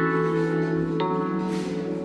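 Instrumental background music: sustained chords held steadily, with a new chord struck about a second in.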